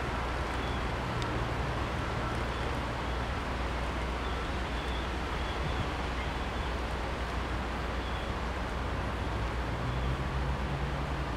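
Class 66 diesel-electric locomotive's two-stroke V12 engine running as it approaches from a distance: a steady low drone.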